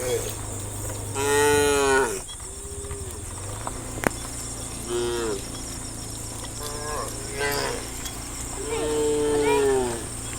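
Several cows mooing one after another, each a drawn-out call rising then falling in pitch. The loudest and longest moos come about a second in and near the end. A single sharp click sounds midway.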